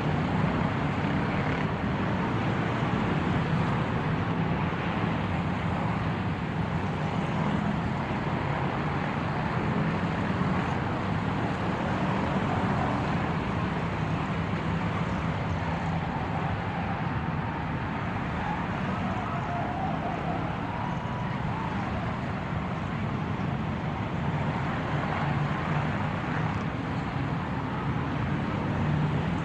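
Car running steadily with engine hum and road noise, holding an even level throughout.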